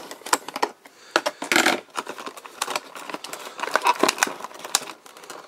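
Irregular rustling, crinkling and clicking of a toy's cardboard packaging and tape as a taped-in accessory is worked loose by hand, with a louder rustle about a second and a half in.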